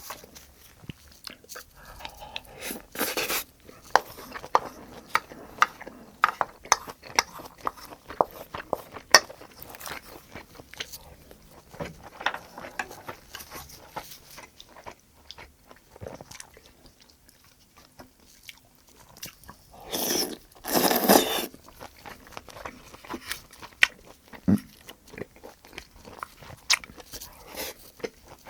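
Close-miked eating of braised kimchi and rice: chewing and biting with many sharp wet mouth clicks and some crunch. About twenty seconds in comes a louder noisy stretch lasting about a second and a half.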